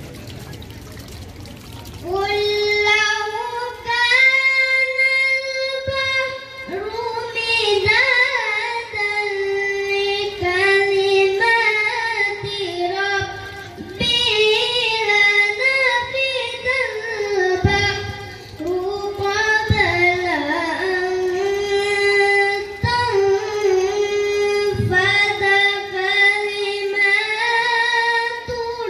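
A boy chanting Quran recitation (tilawah) into a microphone in a high voice, in long held, ornamented melodic phrases broken by short breaths. The chanting begins about two seconds in.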